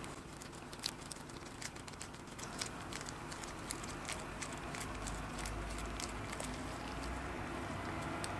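Scattered small clicks and ticks of a plastic lip balm tube being turned and pulled apart in gloved hands, over a steady background noise with a low hum coming in about halfway through.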